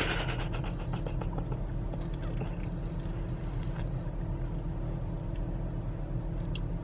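Ford car's engine idling, a steady low hum heard from inside the cabin, with a few faint clicks.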